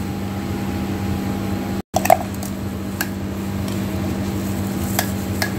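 Steady machine hum of shop appliances with a low droning tone, cutting out for an instant about two seconds in. A few light clinks of utensils or glassware come through, mostly in the last second or so.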